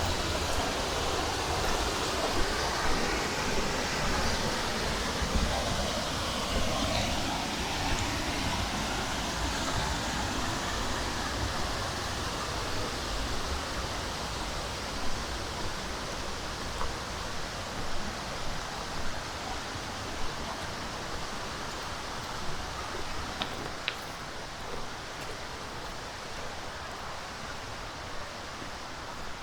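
Mountain stream water rushing over rocks: a steady hiss of flowing water that grows somewhat fainter in the second half.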